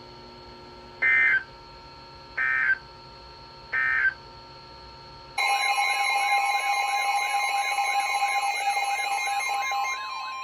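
Emergency Alert System end-of-message data bursts: three short, evenly spaced electronic squawks about a second and a half apart. Then, about five seconds in, a louder continuous alarm of rapidly wavering, sweeping tones over steady tones starts. Near the end it gives way to a single steady alert tone.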